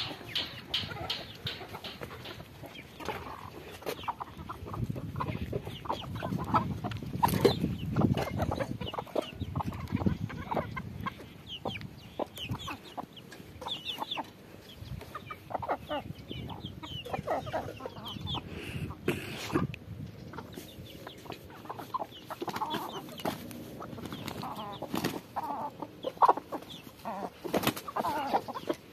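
A flock of domestic hens and roosters clucking continuously while foraging, with many short overlapping calls.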